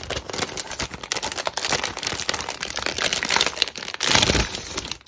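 Crinkly packaging being handled and unwrapped: a dense run of rustles and crackles, loudest about four seconds in.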